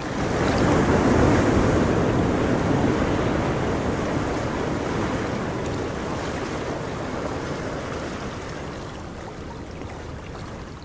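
Ocean surf rushing steadily, growing quieter and cutting off near the end.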